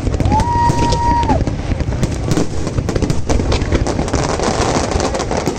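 Fireworks display with a continuous rapid crackle of small bursts over a low rumble of booms. A short whistle sounds for about a second near the start.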